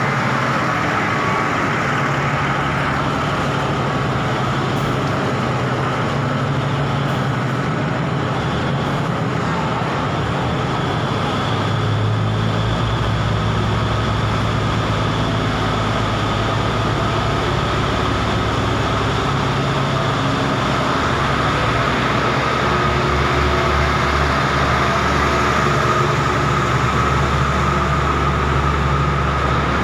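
A State Railway of Thailand diesel passenger train pulling out and running past the platform: a steady mix of wheel noise and engine noise. A deeper engine rumble comes in about halfway through and grows louder in the last several seconds.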